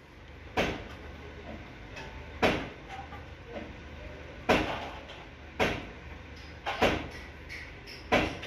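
Socket wrench working bolts on a diesel engine's timing cover: about seven sharp metallic clacks at uneven intervals of one to two seconds, two of them close together near the end.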